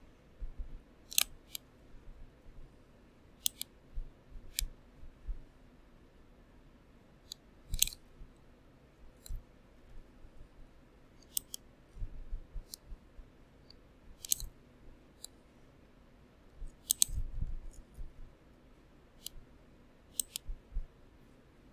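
Computer mouse clicks: about a dozen sharp, irregularly spaced clicks, with soft low knocks in between.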